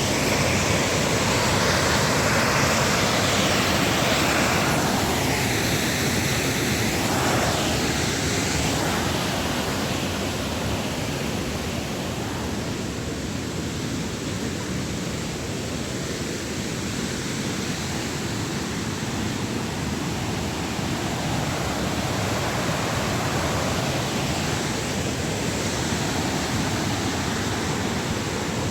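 Steady rushing of a waterfall's falling water, a continuous even roar.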